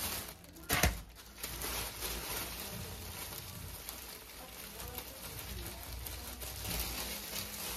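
Coarse khand sugar pouring in a steady stream from a plastic bag onto chopped dry fruits in a pot, a continuous granular hiss, after a short rustle of the plastic bag about a second in.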